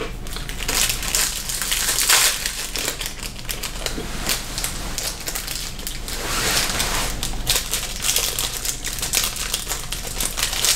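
Clear plastic snack wrapper crinkling and crackling as it is opened and handled, heaviest in two stretches about a second in and about six seconds in.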